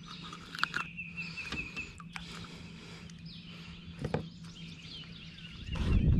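Birds chirping and whistling in the background over a faint steady hum, with a few sharp clicks from handling a crappie and jig over a landing net. Near the end a loud low rumble sets in.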